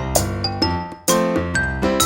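Background music: a bright keyboard tune with chiming, bell-like notes and a steady beat.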